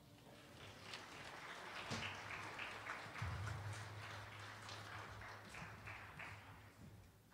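Footsteps of several people walking across a hard stage floor: irregular taps, several a second, with a steady low hum joining about three seconds in.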